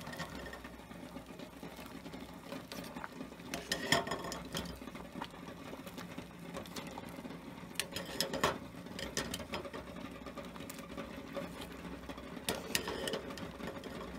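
Water at a rolling boil in a stainless steel pot holding eggs, a steady bubbling rattle. A few sharp knocks stand out, about four seconds in, around eight and a half seconds, and near the end.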